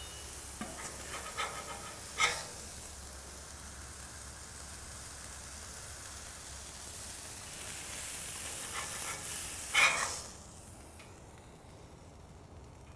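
Beef burger patties sizzling on a Blackstone flat-top griddle, with a steel spatula scraping across the griddle about two seconds in and again just before ten seconds. The sizzle stops about ten and a half seconds in.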